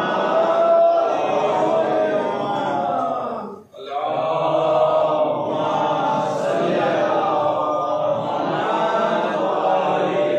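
Many voices chanting a devotional refrain together in unison, breaking off briefly about three and a half seconds in and then resuming.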